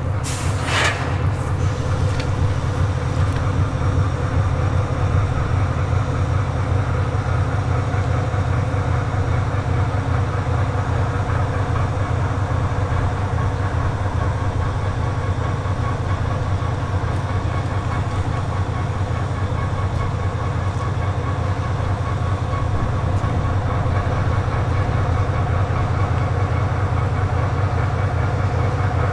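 Soviet-built diesel locomotives, a 2M62 leading a 2TE10U, rolling slowly past at close range with their diesel engines running: a steady deep rumble with a hum over it. A brief shrill sound comes just after the start.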